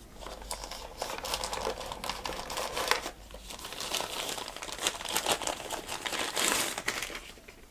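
Crinkling and rustling of a camera's white protective wrapping as it is lifted from a cardboard box and unwrapped by hand, an irregular crackle with a short lull about three seconds in.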